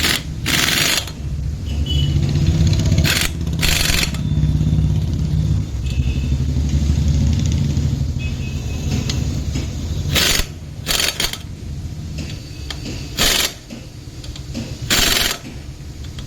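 Pneumatic impact wrench tightening the wheel nuts in about seven short bursts, spaced unevenly, over a steady low machine hum.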